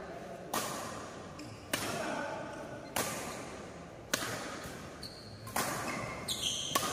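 Badminton rackets hitting a shuttlecock back and forth in a rally: six sharp hits at a steady pace of a bit more than one a second, each ringing on in the large hall.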